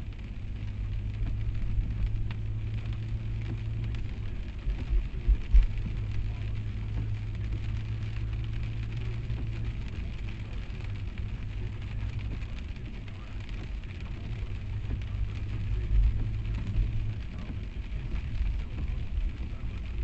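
Car driving on a rain-soaked road, heard from inside the cabin: a steady low hum of engine and road noise under the hiss of tyres on wet pavement and rain. A few bumps stand out about five seconds in and again near sixteen seconds.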